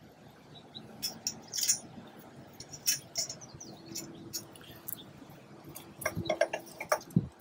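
Small metal hardware clicking and clinking against a roof rack's slotted rail as drop-in T-nuts and bolts are handled in the rail slots. The clicks are irregular, with a quick cluster near the end.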